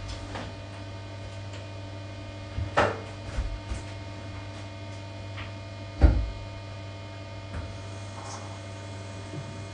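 Knocks and bumps of a person climbing into a bathtub and kneeling in it to scrub, the loudest about three seconds in and again about six seconds in, over a steady low hum.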